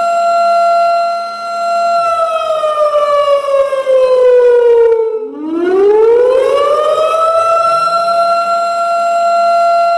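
Warning siren sound effect: one steady tone that holds, then slides slowly down in pitch for about three seconds. It breaks off briefly about five seconds in, then climbs back up over about two seconds and holds steady again.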